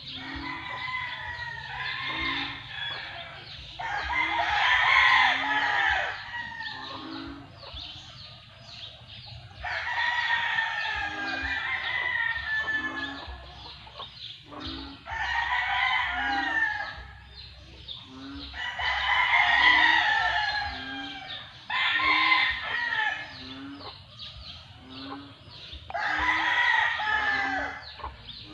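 Roosters crowing again and again, each bout lasting two to four seconds, with clucking between the crows.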